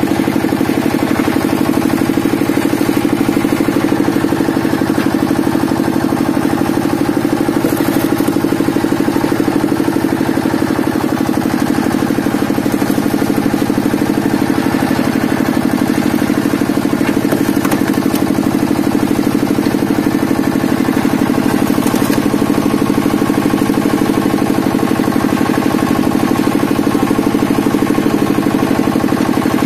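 Engine driving a hydraulic log splitter running steadily with an even, fast pulse, with a few faint sharp cracks as the wedge splits the logs.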